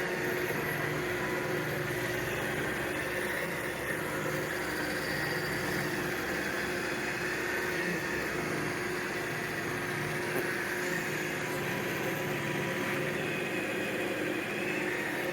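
Roomba 694 robot vacuum running, a steady whirring hum of its vacuum motor and brushes.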